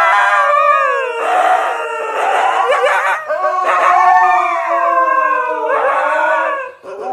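Husky howling in a run of long, wavering howls that slide up and down in pitch, with short breaks about a second in and near three seconds, fading out near the end.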